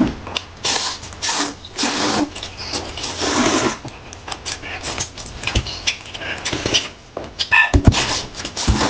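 Two people loudly slurping noodles, a string of long sucking slurps one after another. A couple of low thumps near the end.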